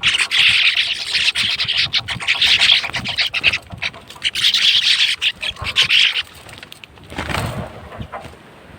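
A flock of sparrows chirping, many rapid overlapping chirps at once. The chirping stops about six seconds in, and a brief noise follows about a second later.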